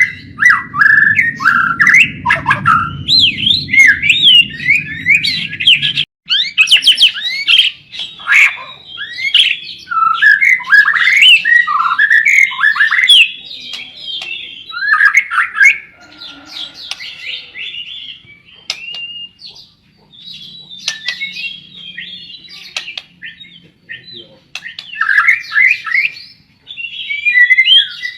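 White-rumped shama (murai batu) singing vigorously, with rapid, varied whistled phrases and chattering notes in an almost unbroken stream. A low background rumble stops abruptly about six seconds in.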